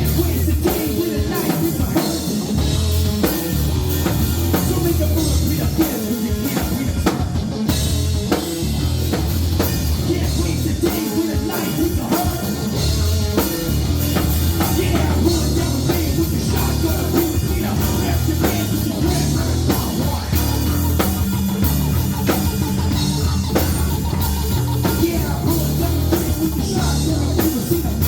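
Live rock band playing: drum kit and electric guitar with bass, and a singer at times.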